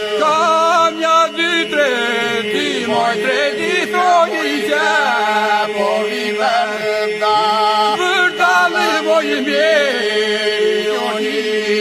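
Albanian polyphonic folk song: a wavering, ornamented lead voice sung over a steady held drone.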